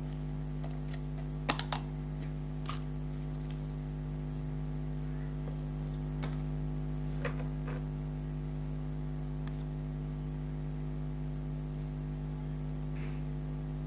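Steady electrical hum with a few scattered light clicks and taps, the loudest about one and a half seconds in.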